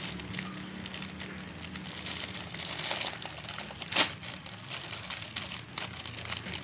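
Thin clear plastic packaging bag crinkling and crackling as a child's fingers pick and tear at it to free a plastic mask, with one sharper, louder crackle about four seconds in.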